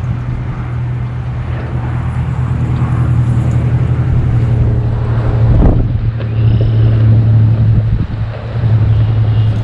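A steady, low engine-like hum that builds up over the first few seconds and then holds, with a brief rushing sweep about halfway through.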